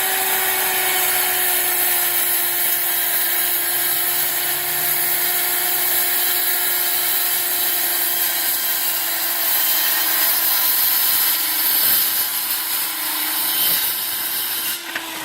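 Circular saw running at full speed while cutting through a countertop on the final pass, a steady whining drone with a slight sag in pitch under load. Right at the end the motor starts to wind down as the trigger is released.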